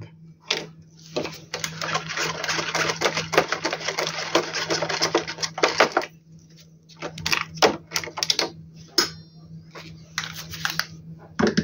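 Rapid, dense mechanical clicking of a tool working on the screws of an inverter's circuit board for about five seconds, then a few separate clicks and taps as parts are handled.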